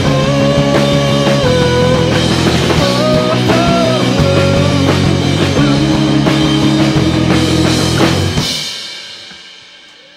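Live rock band playing: male lead vocal over electric guitars, bass guitar and drum kit. About eight and a half seconds in the band stops on a final hit and the sound rings out and fades.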